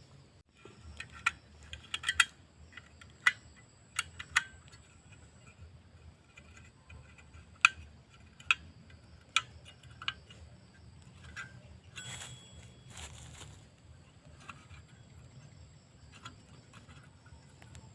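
Sharp metallic clinks and knocks, about a dozen of them, scattered through the first half, as camp cooking gear is handled. Under them runs a steady low background, with a faint high steady insect tone.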